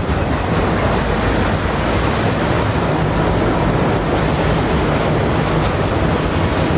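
Freight train of double-stack container cars and autoracks rolling past: a steady, loud noise of steel wheels running on the rails.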